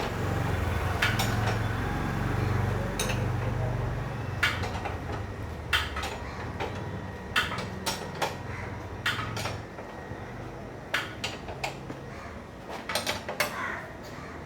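Metal tools clinking and tapping on a motorcycle under repair: a string of sharp, irregular metallic clinks. A low hum underneath is strongest in the first four seconds, then fades.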